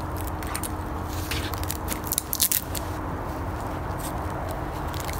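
Puma gnawing and biting a damp, swollen OSB board, with irregular crunching and cracking clicks from the wood, loudest a little past two seconds in.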